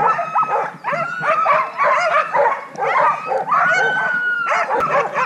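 A team of sled dogs in harness barking and yipping in a dense, overlapping chorus, with one call drawn out for about a second near the end. The dogs are worked up and eager to run while the sled is held stopped.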